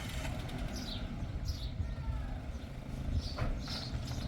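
Birds chirping briefly a few times over a steady low rumble.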